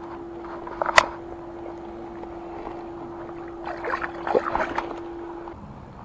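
A released largemouth bass splashing in the water as it kicks away from the hand, a short flurry of splashes about four seconds in. A sharp click about a second in is the loudest sound, over a steady faint tone.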